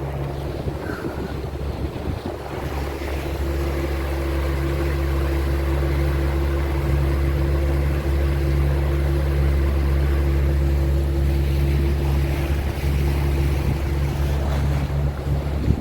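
Motorboat engine running with a steady pitch. It grows louder over the first few seconds as the boat speeds up, then holds, under a haze of wind and water noise.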